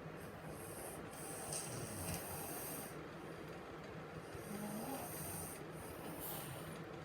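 A young girl snoring in her sleep: two long, hissing snore breaths, each with a low rasp.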